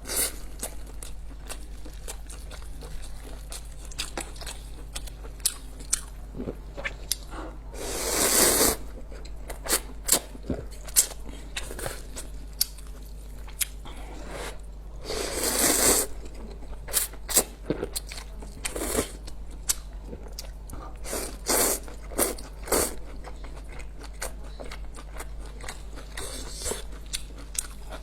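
Close-miked eating of instant noodles and a chicken drumstick: chewing and biting with many small crisp clicks, and two louder, noisy swells about a second long, one about a third of the way in and one a little past half way.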